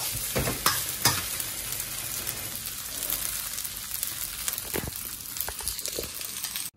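Beef fried rice sizzling in a steel wok, with a metal spatula scraping and knocking against the pan as it is stirred. The sizzle cuts off suddenly near the end.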